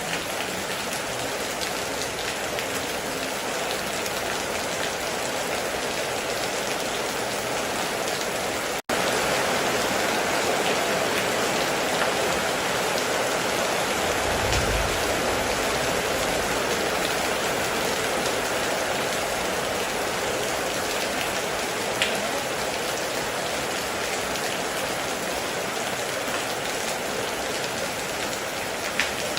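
Heavy rain falling steadily on a metal roof, with a few sharper drip ticks. Just before 9 s it cuts out for an instant and comes back a little louder. A brief low rumble comes around the middle.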